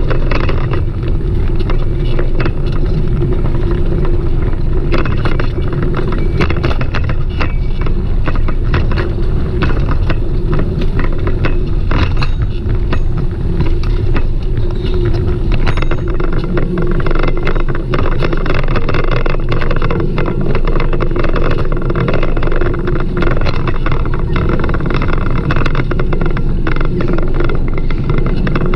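Riding noise from a moving bicycle: a steady loud low rumble with frequent small rattles and clicks throughout.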